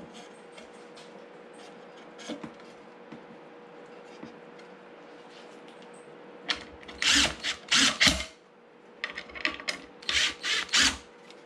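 Cordless drill-driver running screws through wooden seat slats into the chair frame, in two groups of short loud bursts: one set about six and a half seconds in, and another about nine seconds in. Before that there is only faint handling of the boards.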